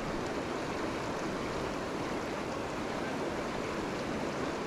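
Steady rush of the Gunnison River, a fast-flowing canyon river running over rocks.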